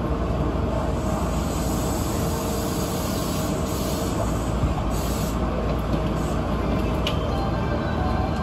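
Steady hum and rumble of a Yokohama Municipal Subway Green Line 10000 series train standing at a station, heard inside its cab, with a couple of faint clicks about seven seconds in.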